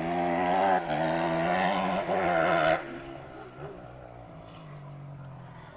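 Kawasaki 250 cc motocross motorcycle engine accelerating hard, its note climbing and breaking twice as it shifts up, then suddenly backing off to a quieter, steady lower running note about three seconds in.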